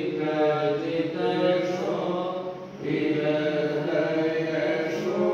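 Devotional chanting: voices sung in long, held notes, with a brief pause nearly three seconds in.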